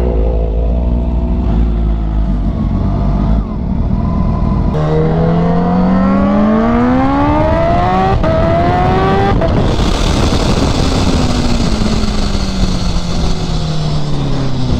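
Supercharged inline-four engine of a Kawasaki Ninja H2, heard from the rider's helmet: running low at first, then accelerating hard with the pitch climbing through a gear change about eight seconds in. From about ten seconds in the revs fall slowly away under loud wind rush.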